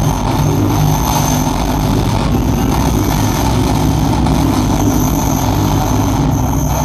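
Live industrial electronic music played on synthesizers and a laptop: a loud, dense wall of noise over a low throbbing drone, with two thin steady high tones on top.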